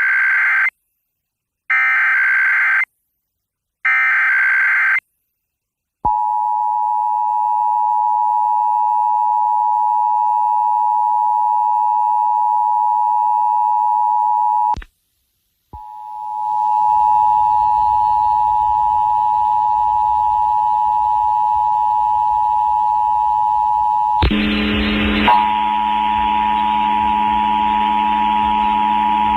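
Emergency Alert System test over FM radio. It opens with three short screeching bursts of digital header data, then the EAS two-tone attention signal (853 and 960 Hz together) holds steady for about nine seconds. After a one-second break, a second two-tone attention signal carries hiss and hum beneath it, and the hum grows louder with about five seconds left.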